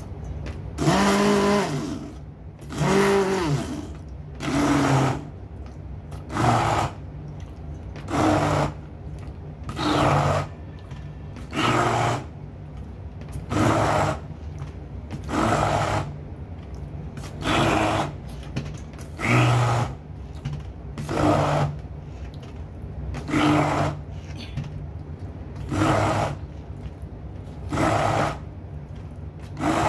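Handheld immersion blender run in short pulses, about one every two seconds, each lasting under a second, as it grinds thick peanut butter paste in a steel bowl. A low steady hum continues between the pulses.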